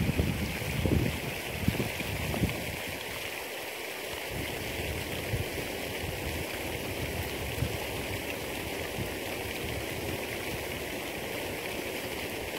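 Steady rushing of wind outdoors, with low buffeting rumbles on the microphone in the first couple of seconds that then die down.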